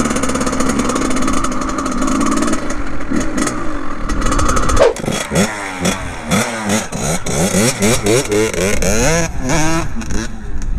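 Kawasaki KX100 two-stroke dirt bike engine running steadily under way. About five seconds in it changes to repeated revving, rising and falling in pitch, as the bike pulls away across grass.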